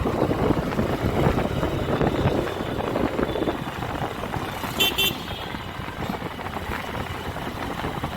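Honda SP125 motorcycle riding along in traffic, its engine mixed with wind noise on the microphone. About five seconds in, a vehicle horn gives a short double toot.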